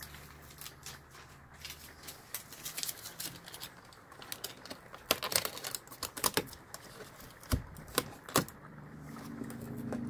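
Foil HVAC tape being peeled from its backing and pressed onto the air conditioner's sheet-metal opening: irregular crinkling clicks and ticks, busier and louder in the second half.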